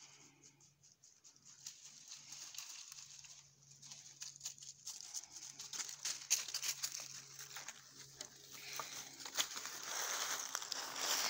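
Footsteps crunching and rustling through dry fallen leaves as a person and a small dog walk across the forest floor, many small crackles in an uneven rhythm, growing louder near the end.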